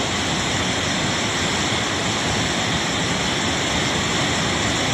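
Swollen river in flash flood, fast floodwater rushing with a steady, unbroken noise.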